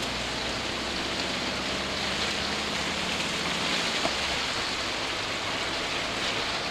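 Heavy rain on a motorhome's windscreen and roof, heard from inside the cab while driving, with tyres on the wet road and a low steady engine drone underneath.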